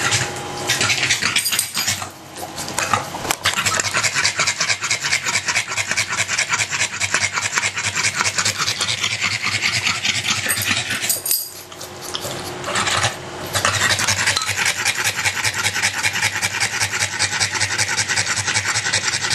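Pug panting fast and steadily, overheated after a walk. The rapid rhythmic breaths break off briefly about two seconds in and again around the middle.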